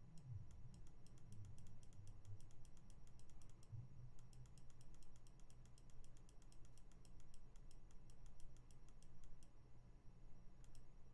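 Light, quick clicks of a keyboard key pressed over and over, a few a second, as text is being deleted from an entry field; the clicking stops shortly before the end.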